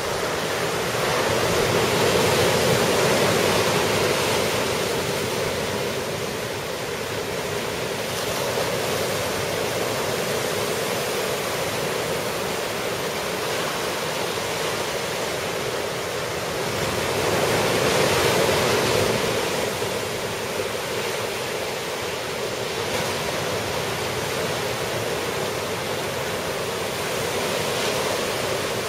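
Ocean surf from a typhoon swell breaking on the beach: a steady rushing wash that swells louder twice, a couple of seconds in and again a little past halfway.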